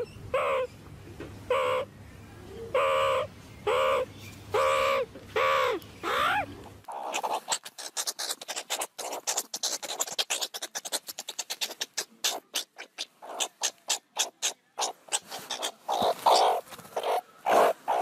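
Meerkats calling: short pitched calls about once a second, some sliding in pitch. About seven seconds in the sound changes to a rapid stream of short chirps and clicks.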